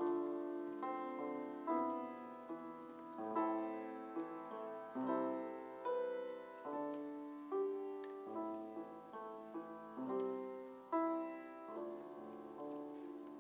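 Solo piano playing a slow, gentle piece, single notes and chords struck about a second apart and left to ring, growing softer near the end.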